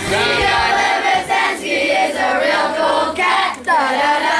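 Several voices singing together, with music that fades out in the first second or so.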